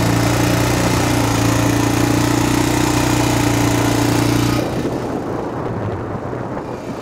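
ATV engine running steadily under throttle while riding through sand. About four and a half seconds in, the throttle comes off: the engine note falls away and the sound goes quieter.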